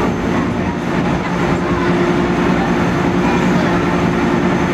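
Steady low drone of a car ferry's engines and machinery, running evenly with a constant hum.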